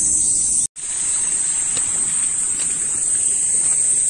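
Steady high-pitched chorus of insects, broken by a brief dropout to silence under a second in.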